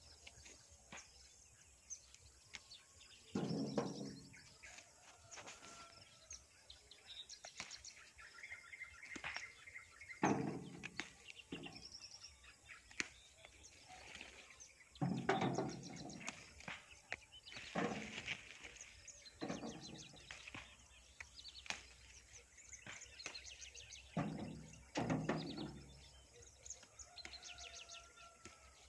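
Several short bursts of rustling and brushing as leafy chili plant stems are pushed through and handled, with occasional faint bird chirps between them.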